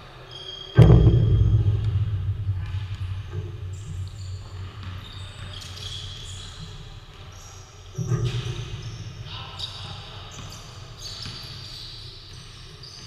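Basketball game on a gym's wooden floor: ball bouncing and players' voices. Two loud booming thuds, about a second in and again about eight seconds in, each echo away over a few seconds in the large hall.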